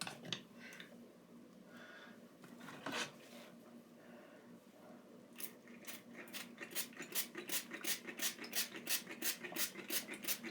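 Rapid, even run of short scratching strokes, about three or four a second, starting about halfway in, after a few scattered handling scrapes.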